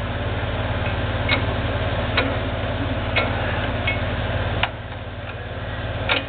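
Half a dozen sharp clicks and knocks, about a second apart, from a bench drill press's table lift being worked: the crank, the rack on the column and the cast-iron table. A steady low hum runs underneath.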